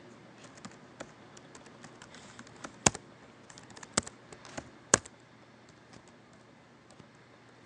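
Typing on a computer keyboard: a run of light key clicks, with three sharper, louder key strikes about three, four and five seconds in.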